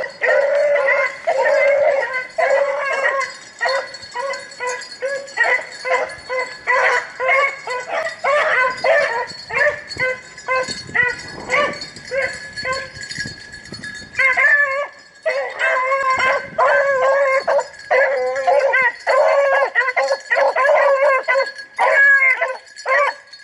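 Rabbit-hunting hounds baying in full cry, several dogs' calls overlapping in quick succession: the pack is running a rabbit's trail.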